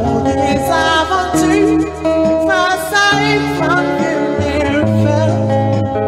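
A man singing a song while accompanying himself on guitar, his held notes wavering in pitch over steady guitar chords.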